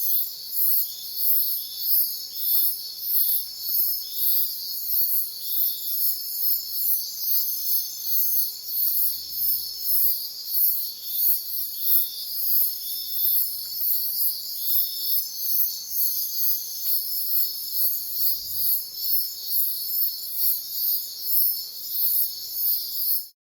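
Insects such as crickets chirping: a very high pulsing a few times a second over a steady high trilling, with short higher chirps mixed in. The sound cuts off abruptly near the end.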